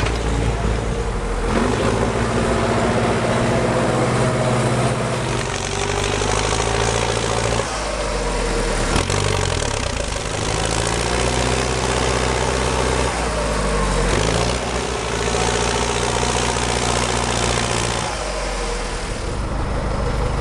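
Tractor's diesel engine running hard under load. Twice its speed drops sharply and climbs back, about a third of the way in and again two-thirds of the way in.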